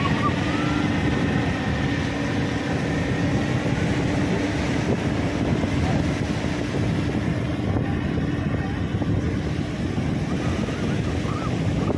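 Powered paraglider trike's engine and propeller droning overhead as a steady hum that weakens after about six seconds, over wind and surf noise.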